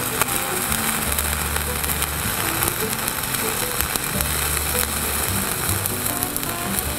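Dual-shield flux-cored arc welding: the arc gives a steady crackling sizzle as the fill bead is run. Background music with a bass line plays underneath.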